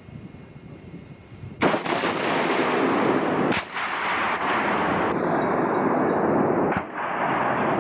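Carl Gustav recoilless rifle fire: a sharp boom about a second and a half in, followed by a long rolling rumble that carries on with two brief dips.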